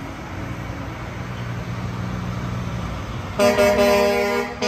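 Army truck's engine rumbling low and steady as it drives slowly past, then a loud truck horn blast about three and a half seconds in, held for about a second.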